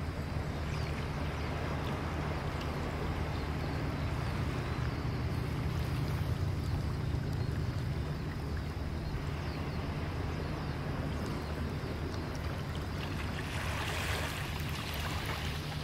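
Small waves lapping on a pebble beach over a steady low rumble, with one wave washing up more loudly near the end.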